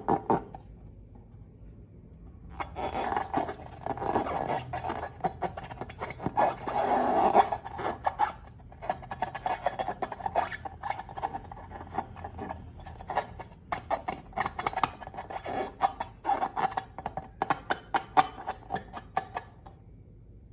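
Sticky slime being squished and worked by hand, making dense crackling, clicking squelches in uneven bursts with short pauses.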